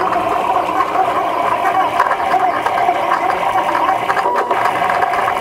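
Stepper motors of a Tantillus Plus 3D printer whining in several wavering, shifting tones as the print head moves during a high-speed print.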